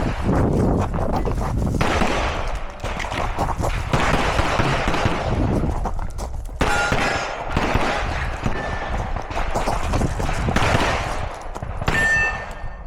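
Handgun fire in fast strings of shots, with brief pauses between strings. A few short metallic rings come in between, around the middle and near the end.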